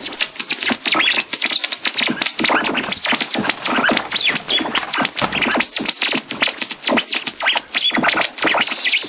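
Rapid, scratchy electronic sound: a dense stutter of clicks and short gliding chirps, many per second, running without a break.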